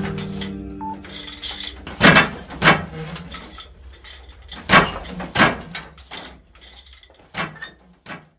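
Acoustic guitar background music fading out about a second in, followed by a series of about seven sharp, irregular knocks that grow fainter toward the end.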